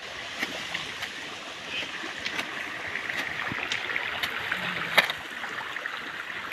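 Shallow stream running over stones, a steady rushing hiss, with scattered clicks and one sharp knock about five seconds in.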